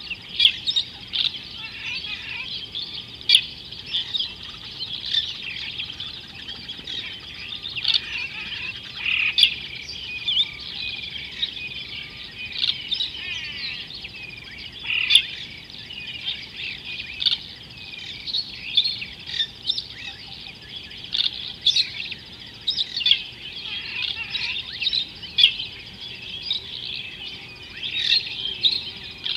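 Many wild birds chirping and twittering at once: a dense, continuous chorus of short, high calls, with single louder chirps standing out now and then.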